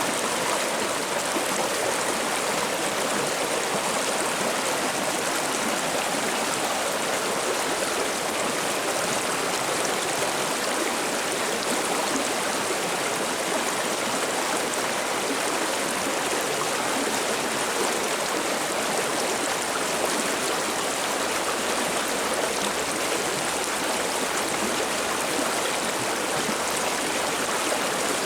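River water babbling and running steadily over rocks, a constant even rush with no change.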